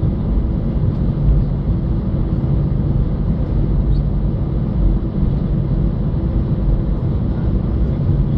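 Airbus A320-211 cabin noise while taxiing, heard from inside the cabin: its two CFM56-5A1 turbofans running at taxi power with a steady low rumble and hum.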